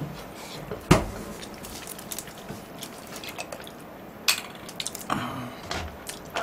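Close-miked wet eating sounds from a person eating, with a sharp knock about a second in and a few lighter knocks and clicks after the middle.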